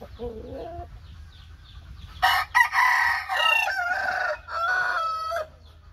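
Rooster crowing: one drawn-out crow starting about two seconds in and lasting about three seconds, with a short break partway through.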